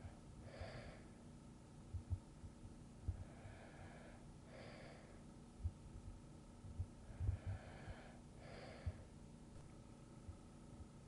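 Slow, soft breathing of a person asleep: about three breaths, one roughly every four seconds, each a longer soft draw followed by a shorter, sharper breath. Faint low bumps fall between the breaths.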